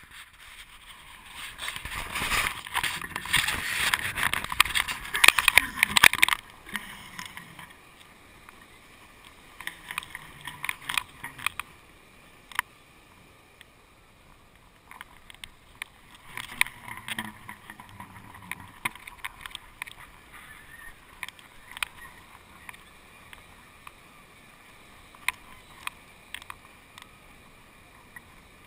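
Wind and rattling on a GoPro camera rig carried up on a kite line: a loud rush of noise with crackling for about the first six seconds, then quieter with scattered clicks and knocks.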